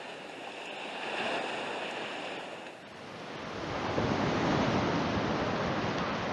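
Ocean surf washing onto a beach, a steady rush with some wind on the microphone; it shifts abruptly about three seconds in and grows louder after.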